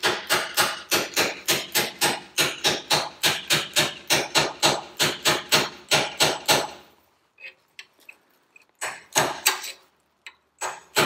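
Claw hammer gently tapping a metal brake knuckle onto a Ferguson TED20 tractor's brake cross shaft, knocking it into position over the key. The quick, even taps come about four or five a second for some seven seconds, then stop, and a few more taps follow near the end.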